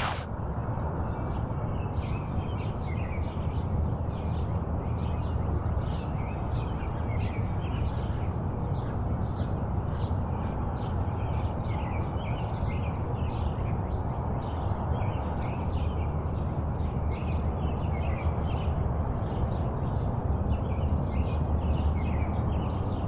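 Many birds chirping busily over a steady low rumbling noise.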